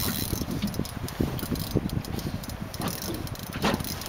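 Fishing reel being cranked, its gears and pawl giving a run of quick, uneven clicks.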